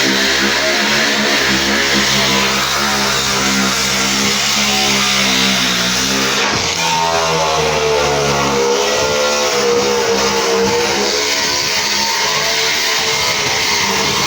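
150 mm angle grinder with a wire brush running against a thin stainless steel sink, a loud steady drone whose pitch wavers as the pressure changes. The brush is uneven, thinner on one side than the other, so it throws the grinder into strong vibration.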